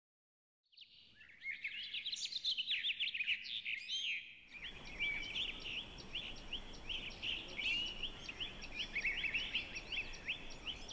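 A flock of small birds chirping, with many short, quick calls overlapping, starting about a second in. About four and a half seconds in the background shifts to a fuller, steadier bed of chirps over a faint hiss.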